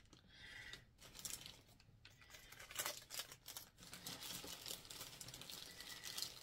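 Plastic packaging crinkling and rustling as packs of earrings are handled and sorted, in irregular spells with sharper crackles.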